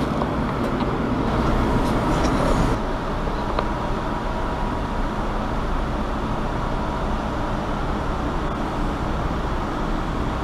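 Steady, fairly loud low mechanical hum of machinery or ventilation running, with a faint steady tone on top.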